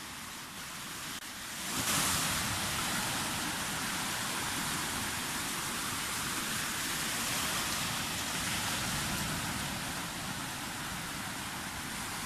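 Sea surf washing on the shore: a steady rushing noise that grows louder about two seconds in.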